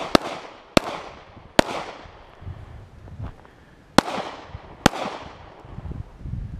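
Five pistol shots: three in quick succession, a pause of about two seconds, then two more, each with a short echo trailing off after it.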